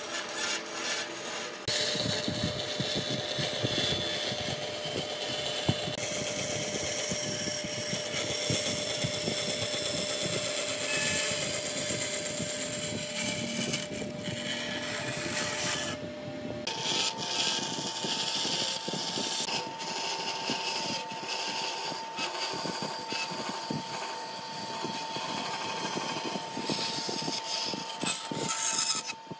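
Band saw running and cutting a curve through a thick wooden board: a steady machine hum with the hiss of the blade in the wood. About two-thirds of the way through, the hum abruptly shifts to a higher pitch.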